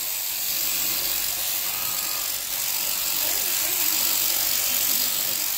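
Electric sheep-shearing machine with an overhead-driven handpiece, running with a steady whir. Faint voices are heard about halfway through.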